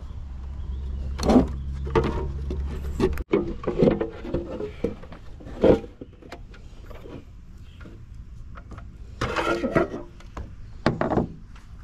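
Scattered knocks, clicks and rattles of pool-pump parts being handled as the pump is taken apart by hand, over a low steady hum that cuts off about three seconds in.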